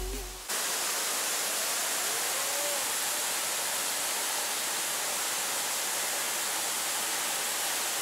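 Steady roar of a large waterfall at close range, a dense even rush of falling water and spray, very noisy. It comes in abruptly about half a second in as music ends.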